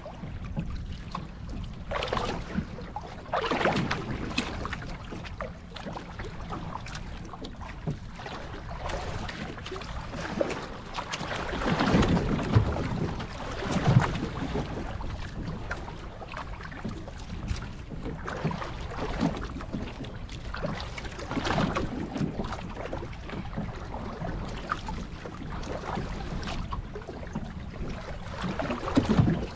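Water sloshing and slapping against the hull of a small boat on rough sea, with wind buffeting the microphone and a steady low rumble underneath. The splashes come irregularly, the loudest about twelve and fourteen seconds in.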